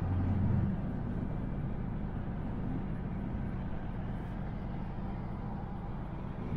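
Inside-cabin sound of a BMW E90 328i xDrive cruising on the highway: steady road and tyre noise with a low engine hum that drops away under a second in. The stock exhaust is a little too quiet to stand out.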